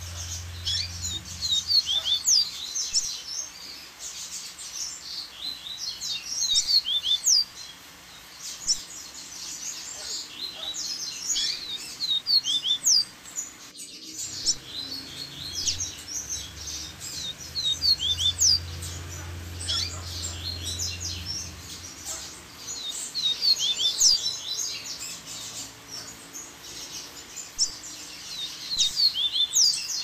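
Double-collared seedeater (coleiro) song: phrases of rapid, high chirping and trilled notes, repeated every few seconds with short pauses between.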